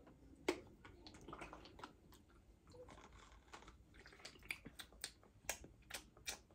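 Sipping and soft handling of plastic water bottles, then a quick run of sharp clicks near the end as a Cirkul flavor-cartridge dial is turned to set the flavor level.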